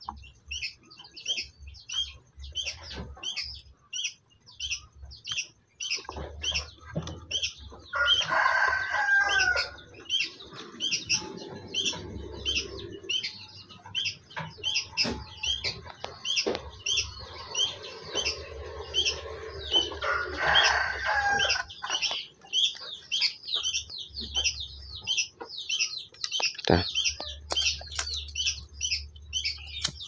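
A small bird chirping steadily, about two short high chirps a second, while a rooster crows twice, each crow about a second and a half long, roughly eight and twenty seconds in. A single sharp click near the end.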